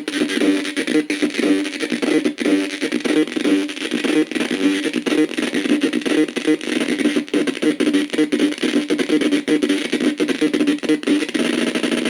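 Harsh noise music: a repeating, distorted guitar-like figure under a dense wash of hiss, with no bass.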